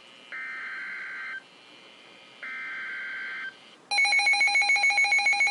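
Two buzzy digital data bursts of about a second each from a NOAA Weather Radio: EAS/SAME header tones that encode the alert. About four seconds in, the weather radio receiver's own alert alarm goes off with a loud, rapidly pulsing multi-tone beep, signalling that a warning has been received.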